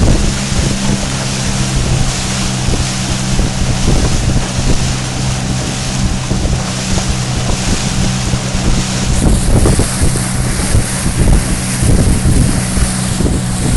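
Motorboat engine running at a steady drone while under way, with wind buffeting the microphone and water noise from the boat's movement.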